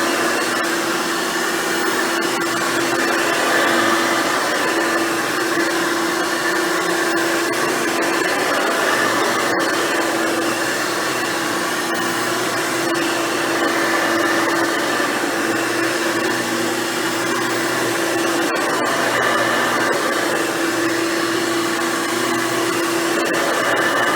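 Hoover Futura Dimension upright vacuum cleaner running steadily, its motor hum holding a constant pitch while it cleans.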